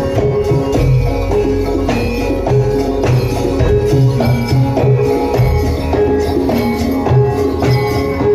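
Javanese gamelan playing jaran kepang accompaniment: fast, evenly repeating bronze mallet notes over low drum strokes, at a steady full level.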